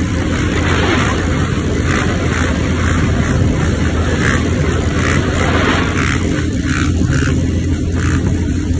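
Sport quad bike engine running steadily while the quad is held in a wheelie, mixed with road and wind noise.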